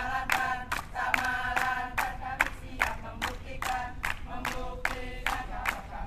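A group of voices chanting and shouting together over steady, even clapping, about two and a half claps a second.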